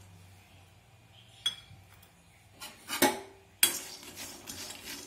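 A metal spoon knocking and scraping against an iron kadai while stirring raw peanuts being dry-roasted. A few sharp clinks come after a quiet start, two loud ones around the middle, then lighter scraping and rattling.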